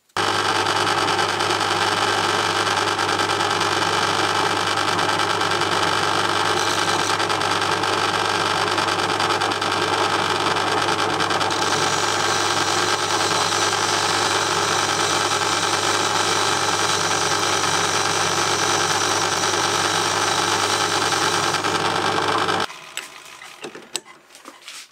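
Metal lathe running with a carbide tool taking a cleanup cut along a hot-rolled mild steel bar to remove the mill scale: a steady mechanical running noise with a constant hum. It stops abruptly near the end.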